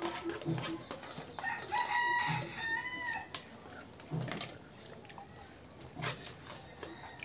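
A rooster crows once, a pitched call of about two seconds that dips at the end, starting about a second and a half in. Light clicks of spoons on plates are heard, with a soft low thump repeating about every two seconds.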